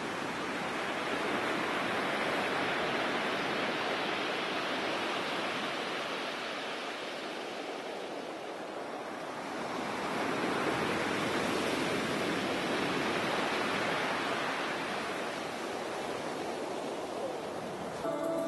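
Sea waves breaking and washing up a pebble beach, a steady rush of surf that swells and eases twice.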